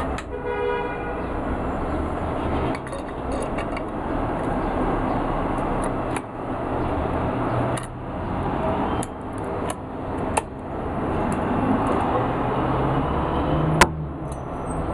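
Metal parts of an IZh-27 double-barrel shotgun being handled and fitted together: scattered clicks and knocks, with one sharp click near the end. Underneath is a steady rumbling background noise, and just after the start there is a short tooting tone.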